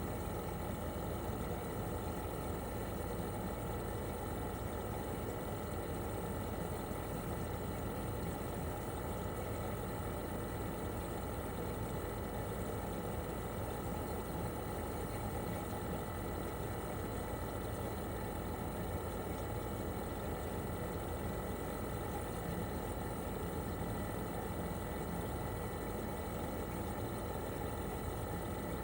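Outdoor unit of a 1997 Toshiba RAS-285BAD mini-split air conditioner running steadily in cooling mode: its twin rotary compressor and propeller fan make a constant hum with a few steady tones over the fan noise.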